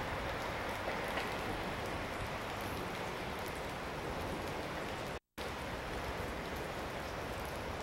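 Steady rushing noise at a railway station platform beside a parked passenger train, with no distinct events. The noise cuts out completely for an instant about five seconds in.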